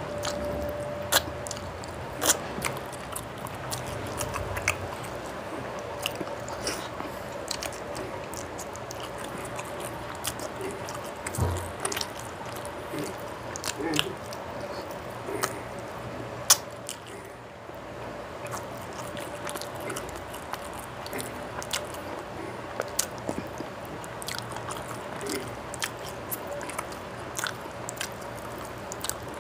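Close-miked mouth sounds of a person eating rice with fish and egg curry by hand: chewing and wet lip smacks, with frequent sharp clicks at irregular intervals.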